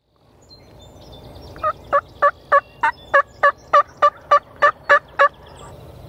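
Turkey yelping: a run of about thirteen evenly spaced yelps, about three a second, starting a couple of seconds in and stopping after the last one, with faint songbirds calling underneath.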